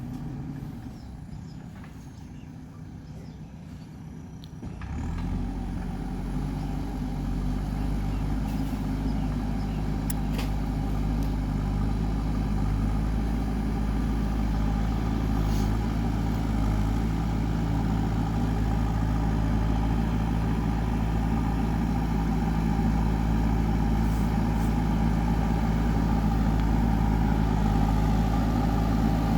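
JCB 3DX backhoe loader's diesel engine running, rising sharply in level about five seconds in and then holding steady.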